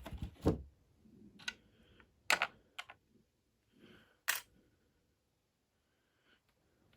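Handling noise from small hard objects: a handful of separate sharp clicks and knocks, spread over the first four and a half seconds with faint rustling between.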